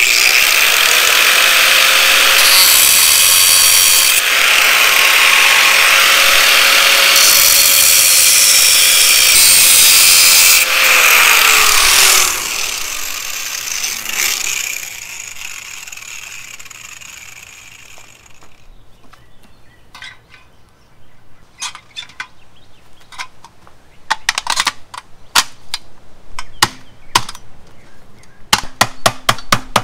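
Angle grinder running at full speed and cutting two notches into the inner ring of a wheel beauty ring, the noise turning harsher during each cut. It is switched off about twelve seconds in and its whine falls as the disc spins down. Then a series of short, sharp hammer taps, coming faster near the end, as the ring is tapped onto the steel wheel.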